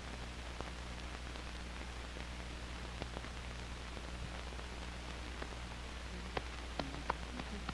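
Soundtrack noise of a 16mm film print with no programme sound on it: a steady low hum and hiss with scattered crackles and pops, which come more often near the end.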